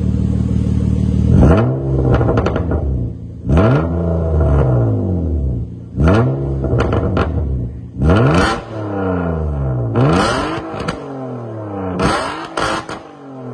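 BMW 328i straight-six heard through an A Performance full catback exhaust with twin tips, idling and then blipped in about six quick free revs roughly two seconds apart, each rising sharply and dropping back to idle.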